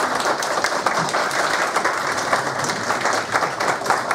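A roomful of people applauding, many hands clapping at a steady level.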